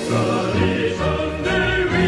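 Anthem sung by choral voices over an orchestra, with sustained low notes underneath.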